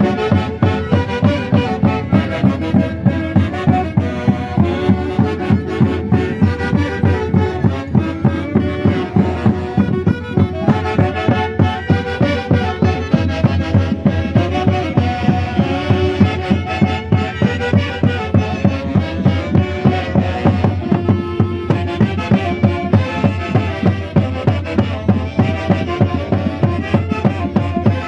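Peruvian Andean folk band playing festival music: melody instruments over a steady, regular pulsing beat.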